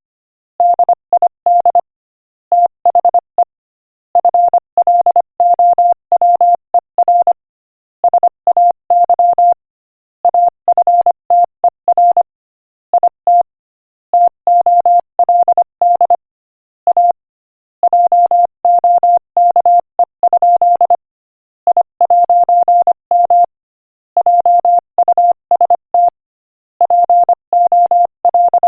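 Morse code at 25 words per minute: a single steady tone keyed on and off in quick dots and dashes, grouped into letters and words by short silent gaps.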